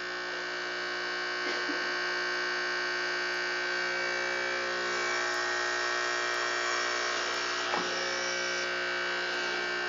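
Small vacuum pump of an SMD vacuum pick-up tool running with a steady buzz, a little brighter from about halfway through, with one faint tick about three-quarters of the way in.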